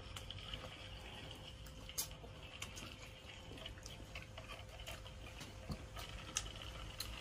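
Quiet room with a few faint, scattered clicks and taps of chopsticks and tableware.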